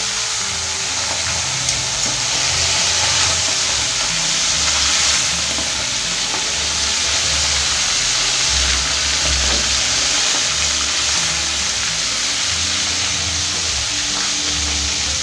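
Baby giant trevally heads deep-frying in hot oil in an aluminium wok, with a steady, loud sizzle of bubbling oil.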